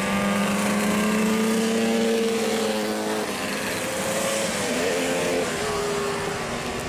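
Several classic racing motorcycles passing close at high revs. Their engines hold a high pitch, waver about halfway through, then drop lower as they go by.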